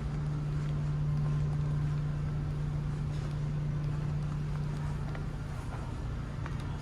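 Steady low drone of the ferry Osaka II's engines and machinery heard on board: a constant hum with a low rumble beneath it and a few faint ticks.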